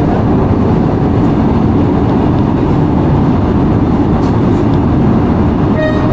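Shinbundang Line driverless metro train running through a tunnel, heard from inside the front car: a steady, heavy rumble of wheels on rail. A few tones come in near the end.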